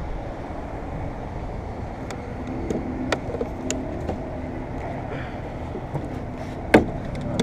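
Steady low background rumble with a few light clicks and one sharper knock about three-quarters of the way through, from plastic trim pieces being handled.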